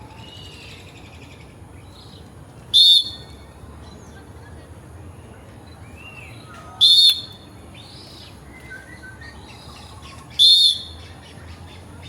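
A bird giving three loud, short, high calls, evenly spaced about four seconds apart, over fainter chirping and whistling from other birds in the aviary.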